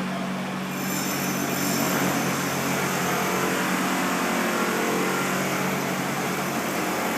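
Steady machine drone, like an engine running, with a high whine joining about a second in.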